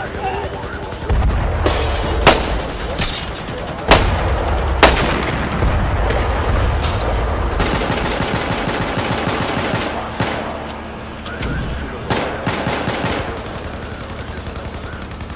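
Gunfire: a few loud single shots in the first five seconds, then sustained rapid automatic fire that thins out to scattered bursts after about ten seconds.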